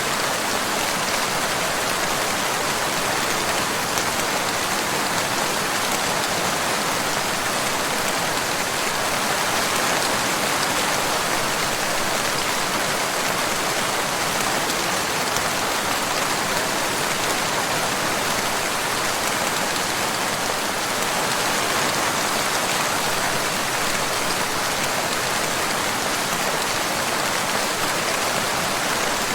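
Steady rain falling, an even hiss of countless drops with no thunder or single louder strikes.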